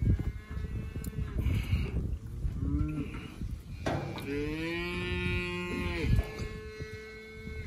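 Calf bawling in three calls: a short one at the start, a brief one about three seconds in, and a long call of about two seconds in the second half.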